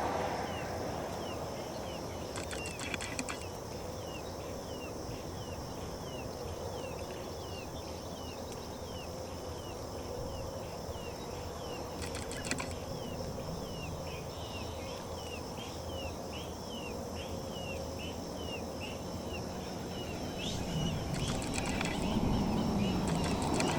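Animal chirps: short, downward-sliding calls repeating about twice a second, over a steady low background rumble, with a few sharp clicks about three seconds in, midway, and near the end.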